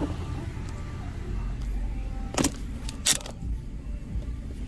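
Car engine idling, heard from inside the cabin, with two sharp clicks a little over two seconds in, under a second apart.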